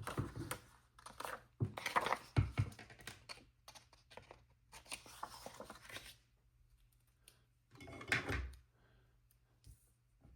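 Paper craft materials being cut and handled: a series of short snips, rustles and light clicks in irregular bursts, with quiet gaps.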